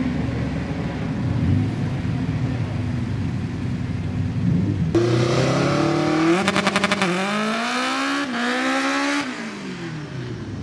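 Honda Civic hatchback drag car launching hard from the start line after a rough rumble at the line. Its engine revs climb sharply through the gears, with a brief rapid stutter and two shifts, then the note falls away as the car pulls off down the strip.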